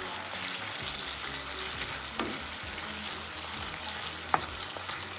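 Pork belly and sliced chayote sizzling in a nonstick frying pan as a wooden spatula stirs them, with scattered scrapes and taps of the spatula on the pan. A sharper tap comes a little over four seconds in.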